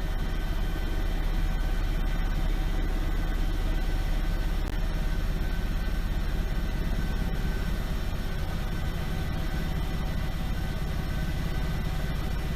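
Steady machine hum: a low rumble with several fixed high whining tones over it, unchanging throughout.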